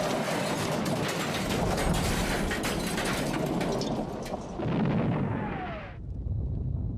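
Loud crackling, rumbling noise like an explosion. About six seconds in the high crackle cuts off and a lower rumble carries on.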